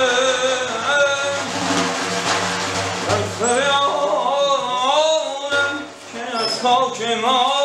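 A man singing a Persian melody with wavering, ornamented lines, accompanied by a daf frame drum struck with the fingers.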